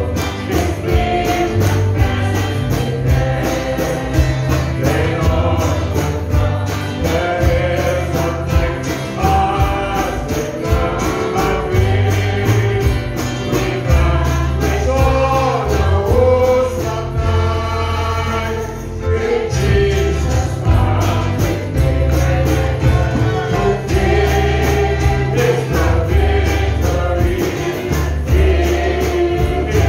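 Live gospel song: a small group of singers with microphones over amplified backing with a bass line and a steady beat. The bass drops out briefly about halfway through.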